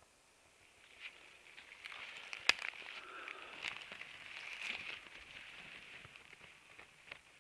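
Rustling and crackling in leaf litter and low plants as a hand reaches in among them, with a sharp click about two and a half seconds in.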